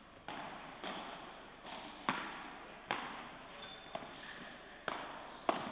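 Padel rally: about eight sharp pops of rackets striking the ball and the ball bouncing off the court and glass walls, each dying away in the hall's echo.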